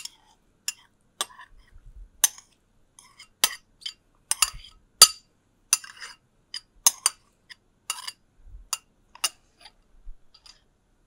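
Metal fork clinking and scraping against a glass bowl as chopped artichoke hearts are scraped out into the dip. Sharp, irregular clinks about two a second, fewer and fainter near the end.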